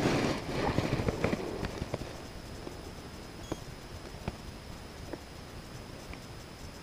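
Close rustling and knocking of clothing and fly-fishing gear right at the microphone for about the first second and a half, then quiet with a few faint ticks.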